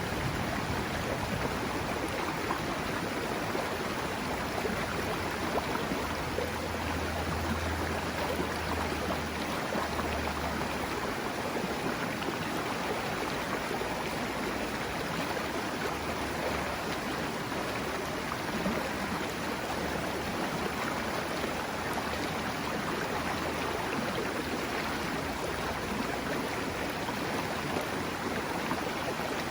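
Mountain river water rushing steadily over rocks. A low rumble rises under it from about six seconds in and fades by about eleven seconds.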